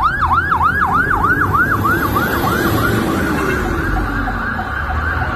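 Emergency vehicle siren wailing in rapid yelp sweeps, about five a second. It grows fainter about halfway through and keeps sounding quietly, over the low rumble of street traffic.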